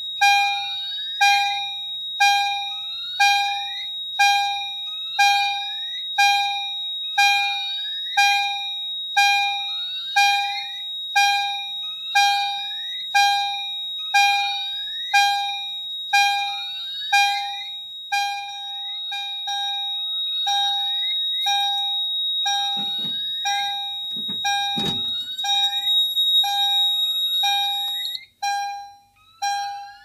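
Fire alarm system in alarm after its Siemens PE-11T photoelectric smoke detector tripped: an EST chime strikes over and over at an even pace, each strike ringing and then dying away. A steady high-pitched piezo tone from the alarm panel sounds along with it and drops away near the end. A few knocks come partway through.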